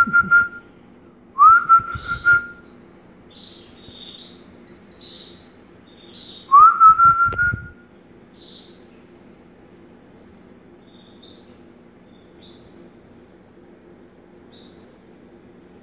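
A person whistles three times, each a short note sliding up and then held: once right at the start, once about two seconds in and once about seven seconds in. Between and after the whistles, small birds give short, high, quieter chirps.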